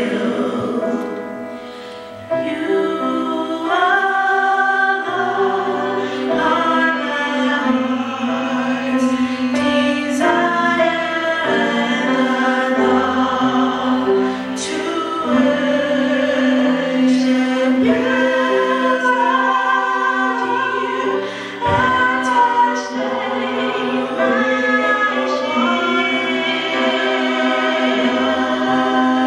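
Three singers singing a slow song together through microphones, holding long notes in harmony.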